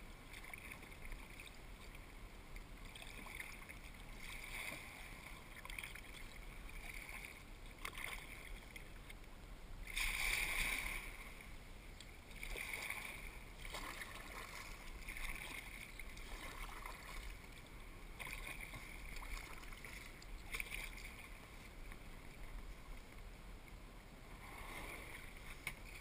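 Kayak paddle strokes in calm water: soft dips and drips that swell and fade about every second and a half, with one louder splash about ten seconds in.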